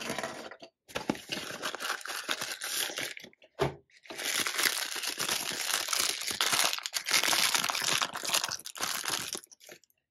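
White tissue paper crinkling and rustling as hands unwrap a Beyblade spinning top from it. The crinkling comes in two long stretches, broken a little over three seconds in by a brief pause and one sharp crackle.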